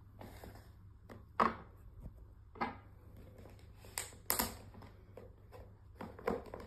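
Slow footsteps on a hardwood floor: a short, soft knock every second or so, some in close pairs, over a faint low room hum.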